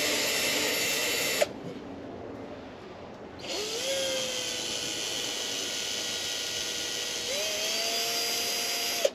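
Power drill boring holes into a metal spanner. The drilling stops with a click about a second and a half in and starts again two seconds later, its motor whine rising as it spins up, holding steady, then climbing again near the end.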